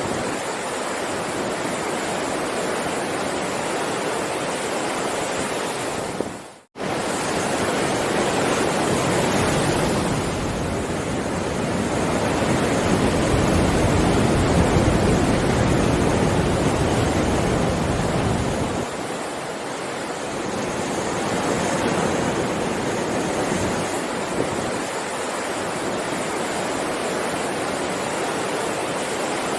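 Heavy ocean surf: a steady rush of breaking waves that swells louder and deeper for several seconds in the middle. About six seconds in, the sound cuts out for a split second and comes straight back, an edit in the recording.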